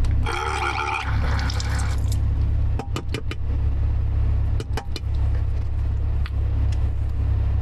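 2010 Chevrolet Camaro's engine idling with the heater on, a steady low hum inside the cabin. Near the start there is a brief higher buzz lasting about a second and a half, and a few light clicks follow around the middle as a toothbrush and toothpaste tube are handled.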